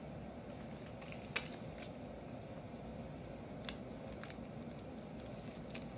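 Baseball trading cards being handled and flipped through: a few light clicks and slides, the sharpest about one and a half and three and a half seconds in, over a faint steady room hum.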